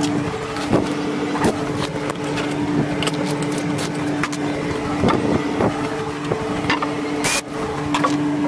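A steady machine hum, with scattered knocks and taps over it.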